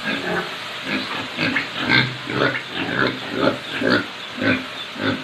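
Domestic pigs grunting, a run of short repeated grunts about two a second.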